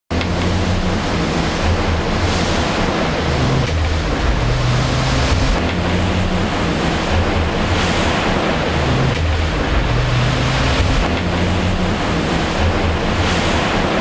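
Sea rushing past a fast-sailing maxi trimaran in rough water, with wind buffeting the microphone: a loud, steady wash that swells with spray about every two to three seconds.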